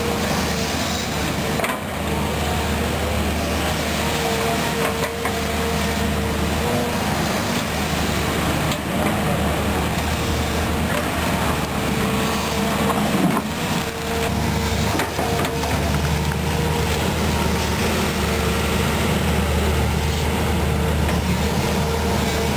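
Volvo EC210B hydraulic excavator's diesel engine running steadily under load while it digs and dumps soil, with a mid-pitched whine that comes and goes as the hydraulics work and a few short knocks.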